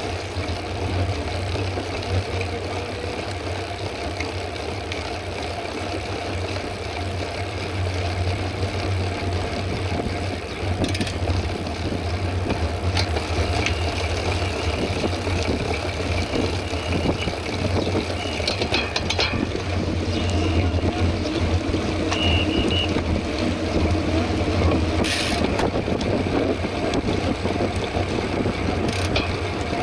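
Steady wind rush and tyre rumble on a bicycle rider's camera microphone while riding at speed on a road. It grows louder in the second half, with a few short high-pitched tones and clicks.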